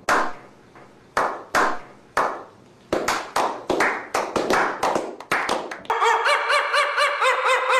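A slow clap: single hand claps about a second apart that speed up into quicker and quicker clapping. About six seconds in it gives way to a fast run of repeated high, pitched chirps, about four a second.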